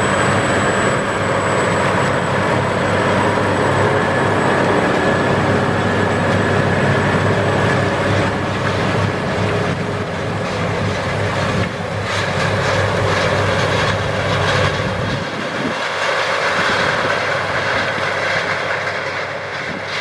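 Challenger MT955B four-wheel-drive tractor's diesel engine running under load as it pulls a Sunflower disc-chisel-disc through corn stalks, a loud steady drone. About three-quarters of the way through, the deep low end of the sound drops away.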